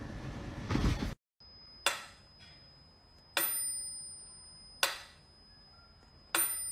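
Mechanical pendulum metronome ticking slowly, about one beat every second and a half. There are four sharp ticks, and every second one carries a high, bell-like ring that hangs on until the next tick.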